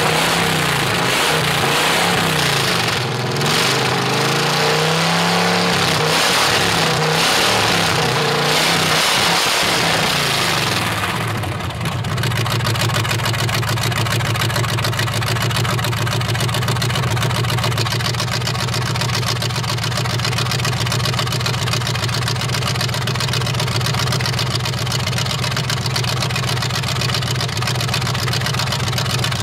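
Chevy V8 mud truck engine with open headers, revved up and down several times. About eleven seconds in it settles into a steady fast idle while the carburetor is being adjusted.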